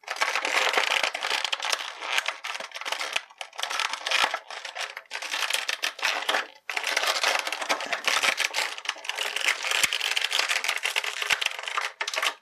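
Clear plastic blister packaging crinkling and crackling as hands flex it and pull an action figure out of it, a dense run of sharp crackles with a brief break about six and a half seconds in.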